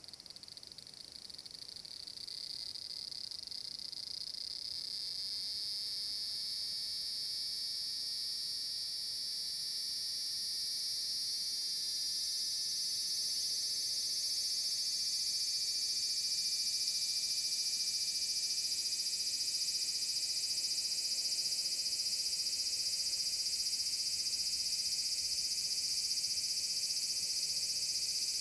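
Large brown cicadas (abura-zemi) singing a continuous high, sizzling buzz. It grows louder over roughly the first fifteen seconds, then holds steady.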